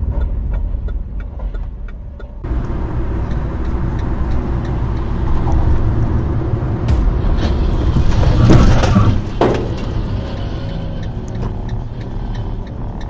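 Road and engine noise of a car driving, heard from inside the cabin through a dashcam, with a change in the sound about two seconds in. About eight seconds in, a louder rushing swell builds and ends in a sharp knock.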